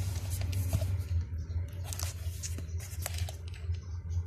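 Handling noise from hands working on car stereo wiring and connectors behind the dashboard: scattered clicks, rustles and scrapes over a steady low hum.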